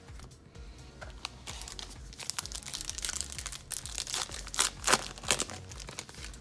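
Foil wrapper of a 2020 Topps Gypsy Queen hobby pack being torn open and crinkled by hand, a run of crackling rustles that peaks near the end, over quiet background music.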